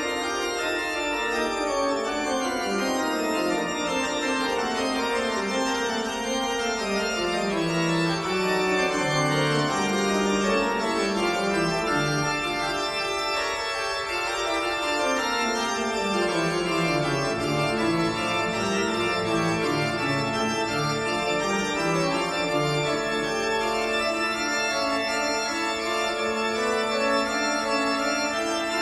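Organ music: held chords that change slowly from one to the next.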